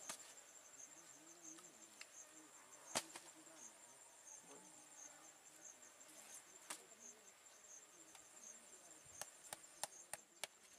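Near silence with faint, steady insect chirping that pulses at an even rate. A few faint clicks sound through it, the strongest about three seconds in and a small cluster near the end.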